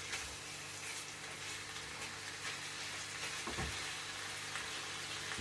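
Chicken strips sizzling steadily as they fry in a frying pan, being sealed on all sides.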